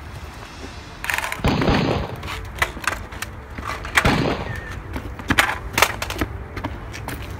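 Gunshots, most likely dubbed-in sound effects: a loud bang about a second in and another about four seconds in, with sharper knocks between them.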